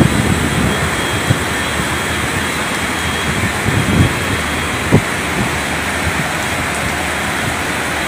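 Floodwater torrent rushing through a railway station, a loud, steady noise with a few dull thumps scattered through it.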